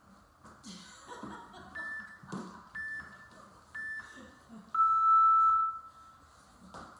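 Workout interval timer counting down: three short high beeps a second apart, then one longer, lower beep that marks the end of the interval. Under it, a person's voice and scuffling on the floor.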